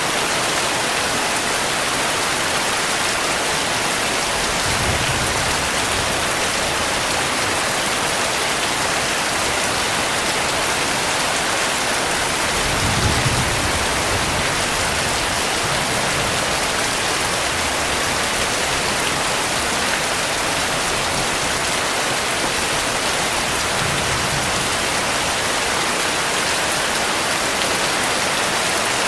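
Heavy rain falling steadily, with soft low rumbles of distant thunder: one about five seconds in, a stronger one near the middle, and a faint one later on.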